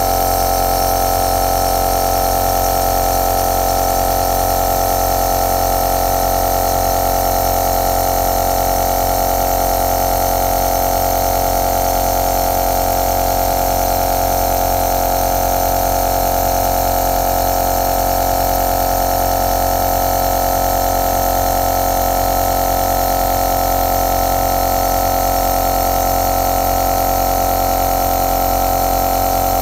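Compressor nebulizer running: a steady motor hum with a strong even tone over a hiss of air, unchanging throughout.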